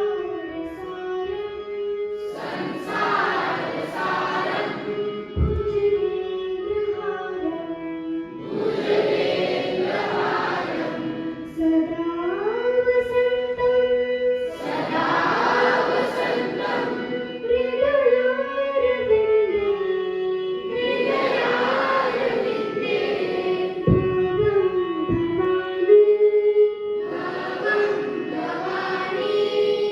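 A group of voices singing a song to instrumental accompaniment, with held notes over a steady pitched drone and fuller swells recurring about every six seconds.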